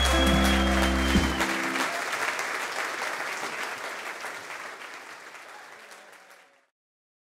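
An acoustic bluegrass band of fiddle, guitar and upright bass holds its final chord, which ends with a sharp knock about two seconds in. Audience applause takes over and fades away steadily until it cuts off near the end.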